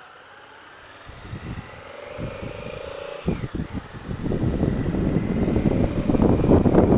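Honda Africa Twin CRF1000L's parallel-twin engine pulling away and gaining speed. Wind buffeting on the microphone grows loud from about three seconds in and covers most of the engine.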